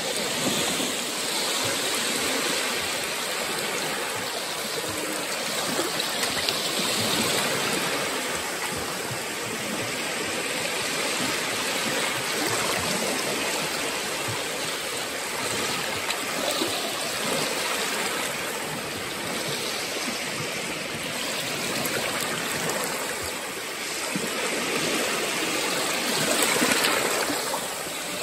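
Small Baltic Sea waves washing in over shallow sand at the shoreline: a continuous rushing, fizzing surf that swells and eases every several seconds, with a louder swell near the end.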